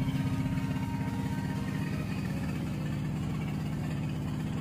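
Fishing boat's engine running steadily with a fast, even low throb.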